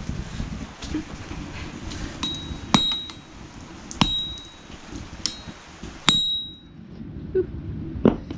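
Hammer blows on a mild-steel knife blank on an anvil: three loud, ringing strikes spaced one to two seconds apart, with a few lighter taps between them, over a steady low background noise.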